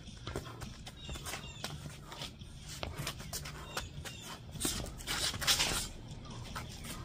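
Kickboxing sparring in gloves and shin guards: a string of short, sharp knocks from gloved punches landing and shoes scuffing and stepping on concrete pavers, with a louder hissing rush about five seconds in.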